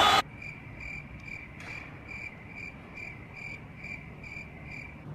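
Crickets chirping: a steady train of short, even chirps a little over two a second, the stock 'crickets' sound effect that marks an awkward silence. It comes in just as loud crowd applause cuts off abruptly at the very start.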